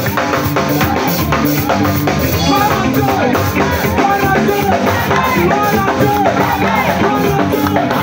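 Upbeat music with a steady drum beat and voices singing along.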